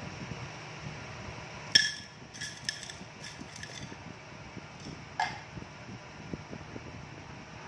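Hard objects clinking: one sharp ringing clink, a few lighter clicks over the next two seconds, then another ringing clink about five seconds in, over a steady low background noise.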